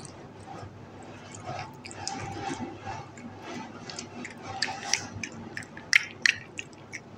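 Cat chewing and lapping a mango chunk from a hand: a run of quick clicks and smacks, the loudest two close together near the end.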